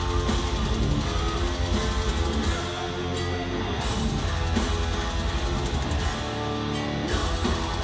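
Heavy metal band playing live: distorted electric guitars and bass over drums, with a heavy pulsing low end that thins out briefly twice, heard from within the crowd.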